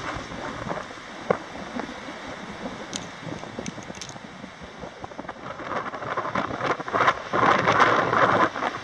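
Wind buffeting the microphone, a rough, crackling rush that swells louder for a few seconds from about halfway through.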